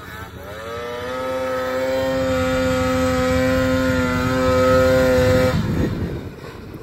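Two-stroke 800 cc snowmobile engine on stock exhaust revving up over the first second or so and held at high revs as the sled works through deep powder, then the throttle drops off sharply about five and a half seconds in.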